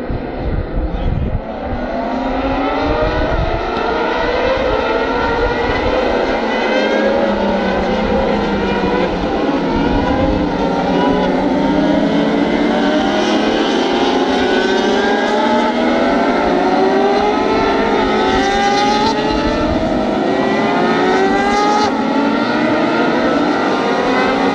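A pack of 600 cc racing motorcycles accelerating past together. Many engines overlap, their pitch climbing again and again as the riders run up through the gears.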